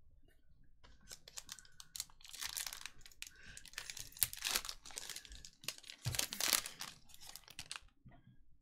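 Foil wrapper of a Panini Select soccer card pack being torn open and crinkled by hand. It is a run of crackling rustles that starts about a second in and stops near the end.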